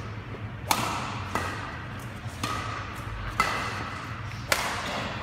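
Badminton rally: rackets striking the shuttlecock back and forth, five sharp hits about a second apart, each echoing briefly in the hall.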